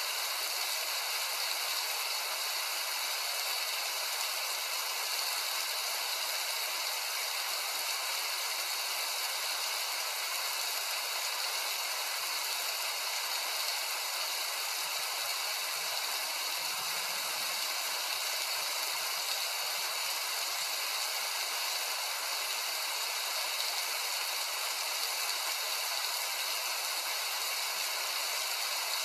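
Heavy rain falling steadily: a dense, even hiss that holds at one level throughout.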